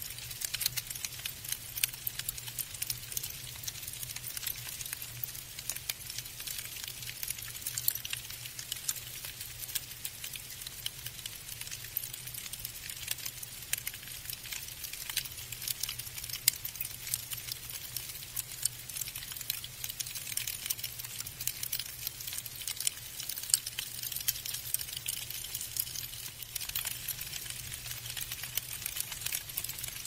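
Falling snow pattering: a dense, irregular run of fine ticks and crackles, with a faint steady low hum underneath.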